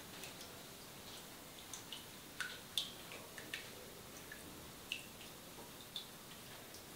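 Water dripping into a ceramic shampoo basin: short, irregular plinks, about two a second, over a faint hiss, the loudest a little under three seconds in.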